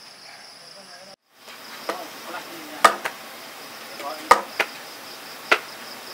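Insects chirring in a steady high band. After a break, sharp chopping knocks come at irregular intervals, about six of them, from raw pork being cut up with a blade.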